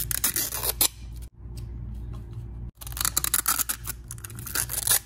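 Thin plastic wrapping crinkling and crackling as it is peeled off a toy capsule and pulled from inside it, in two runs of rapid crackles with a quieter pause between.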